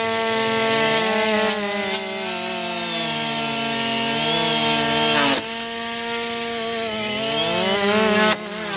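Quadcopter drone's electric motors and propellers whining, with several pitches rising and falling as the motors change speed. The sound dips about halfway through and cuts off abruptly near the end.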